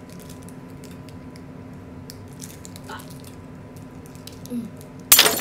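Quiet wet chewing and mouth clicks as someone eats a mouthful of food, then a sudden loud clatter near the end.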